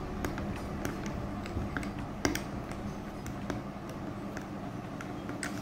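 Metal spoon clinking and scraping against a glass tumbler as dates are stirred and mashed in juice: light, irregular clicks, with one sharper clink a little past two seconds in.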